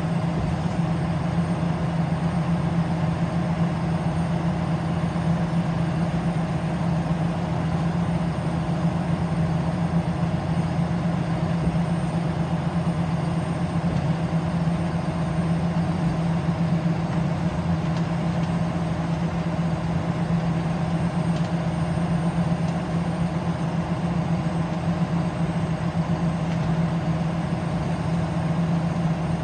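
Scania L94UB Wright Solar single-deck bus heard from inside the saloon while under way: its rear-mounted Scania five-cylinder diesel gives a steady low drone, held at even revs, over constant road and tyre noise.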